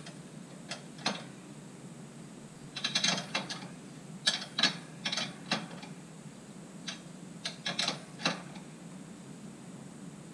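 3/4-inch ratchet wrench clicking in short bursts as the clamp bolt holding a highway peg to the motorcycle's crash bar is tightened, with light metal clinks of the wrench against the clamp.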